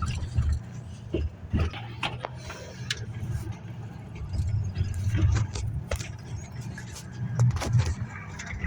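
Car interior road noise while driving: a steady low rumble of engine and tyres, with scattered clicks and knocks.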